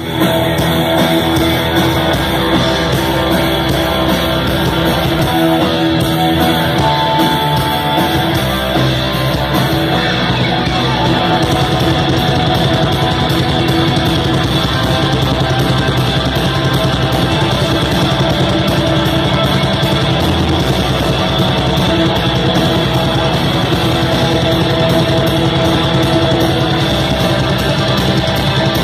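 Black metal band playing loud live: distorted electric guitars holding chords over drums, which change to a fast, dense beat about ten seconds in.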